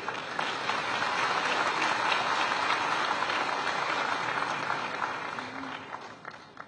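Audience applauding, building quickly at the start and dying away near the end.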